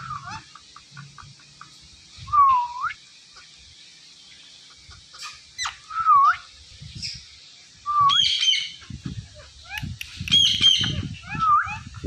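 Indian ringneck parakeets calling: a series of short whistled calls that dip and rise in pitch, a few seconds apart, with a couple of higher, harsher squawks about eight and ten seconds in. Some rustling runs through the last few seconds.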